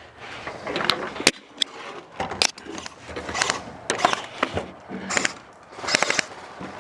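Irregular sharp clicks and knocks, then scuffing and clattering, as a player in airsoft gear climbs up onto an APC.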